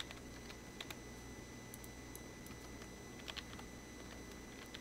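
Faint computer keyboard typing: a few scattered keystrokes.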